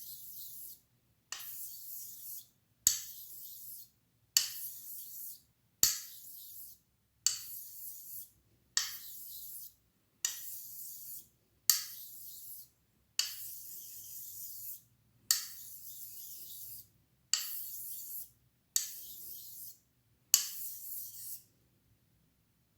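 Razor blade honed on a Nakayama Karasu awasedo, an extra-fine Japanese natural finishing stone: about fourteen steady back-and-forth strokes with a high, hissy scrape, each beginning with a light tick as the blade meets the stone. The strokes stop near the end.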